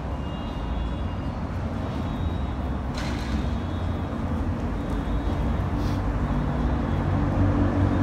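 Low, steady rumble of a heavy vehicle that grows louder toward the end, with a short hiss about three seconds in.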